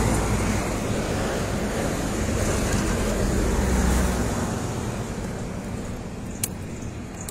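Road traffic noise: a steady rumble of passing vehicles that fades away about four seconds in, with one sharp click near the end.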